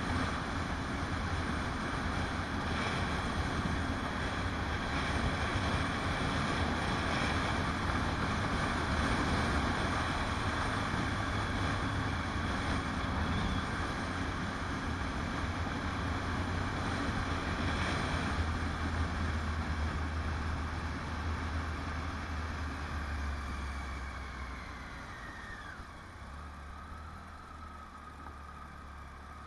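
Motorcycle engine running at road speed with wind rush on the microphone. Near the end the engine note falls and the sound gets quieter as the bike slows.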